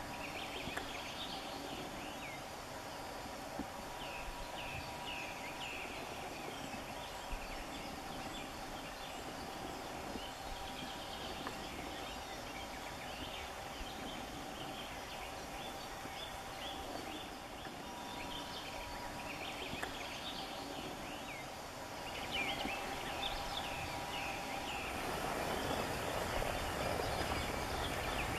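Outdoor ambience of small birds chirping and singing in short, scattered calls over a steady background hiss. Near the end a louder, even rushing noise comes in.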